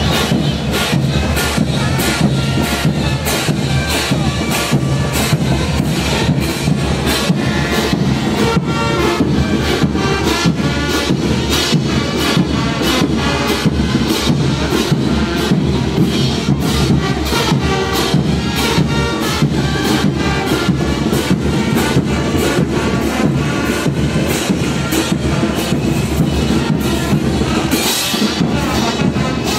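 Andean festival brass band playing dance music: brass over a steady bass drum and drum beat.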